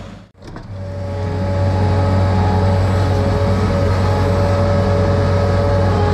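Diesel engine of an earthmoving machine running steadily, a low drone with a steady whine over it. The sound drops out briefly near the start and comes back within a second.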